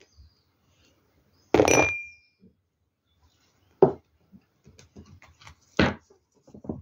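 Small objects handled on a tabletop: a glassy clink with a short ring about a second and a half in, then a couple of knocks and a few light taps.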